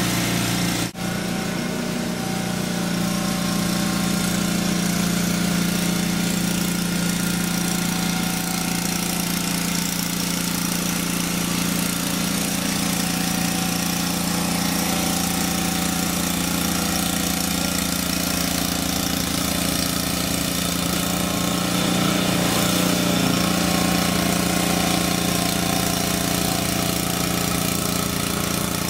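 Walk-behind snow blower's engine running steadily under load as it clears and throws fresh snow, with a brief dropout about a second in.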